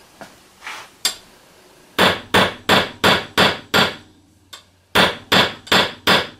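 Hammer striking a freshly repaired and re-hardened steel punch to test it: six sharp metallic blows at about three a second, a short pause, then four more. The punch takes the blows without shattering, so the quench has not left it too brittle.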